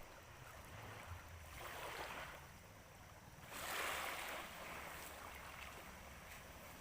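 Small waves washing in at the shore, two gentle swells about two and four seconds in over a faint low rumble.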